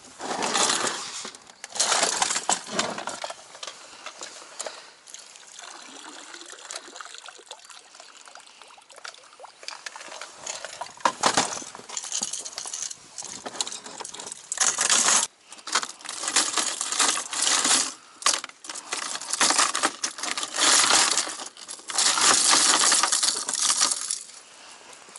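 Hard plastic fishing lures with their treble hooks clattering and clinking in a plastic tackle box as a hand rummages through them, with irregular bursts and a sharp click about eleven seconds in.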